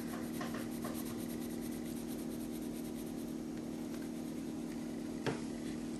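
Coloured pencil rubbing on a small paper art card as an area is coloured in blue, over a steady low hum, with a single short tap about five seconds in.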